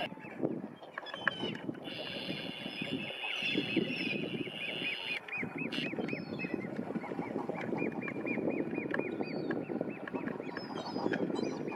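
Common eider duckling peeping: a rapid series of short high notes, about five a second, heard mostly in the second half, over a steady low background noise.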